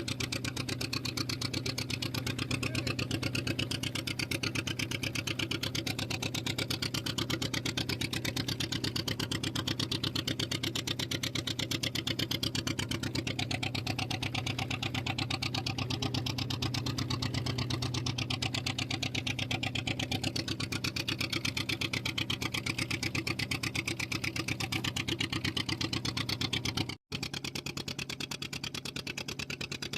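Fishing boat's engine running steadily with a fast, even chugging pulse, broken by a momentary gap near the end.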